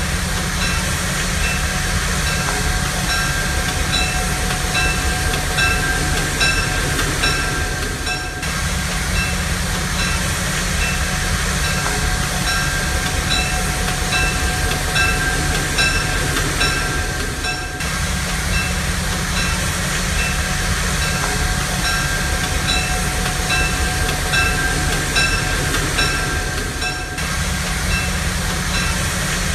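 A train running along the track: a steady rumble with steady tones and a regular clicking. The same passage repeats about every nine seconds as a loop.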